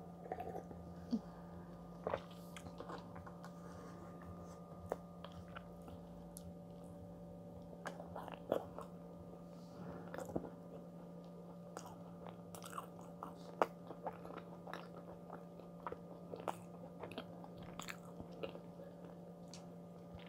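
Close-miked chewing and mouth noises of a person eating a dense, moist chocolate brownie with a slightly crisp top, with scattered small clicks and a sip from a mug near the start. A faint steady hum sits underneath.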